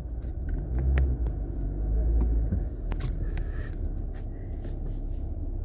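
Jeep Wrangler driving slowly, a steady low engine and road rumble heard from inside the cabin, with scattered light clicks and knocks.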